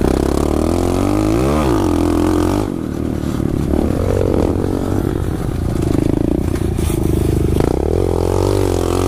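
Pit bike and quad engines running on a dirt trail ride, revving up and down as the riders throttle on and off, with clatter from the rough ground.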